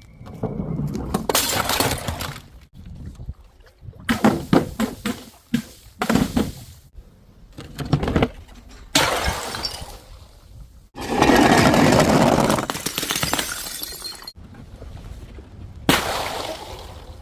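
Glass bottles smashing in a string of short, abruptly cut clips: sharp impacts followed by crackling shards, repeated every few seconds. The loudest is a dense, noisy stretch of about a second and a half a little past the middle.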